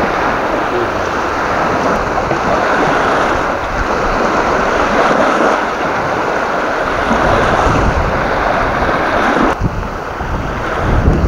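Strong gusty wind buffeting the microphone, with water washing against the reservoir shore: a loud, steady rush that briefly drops about nine and a half seconds in.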